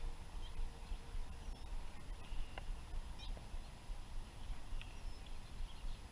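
Steady low rumble of wind on the microphone, with a few short, faint bird chirps scattered through it.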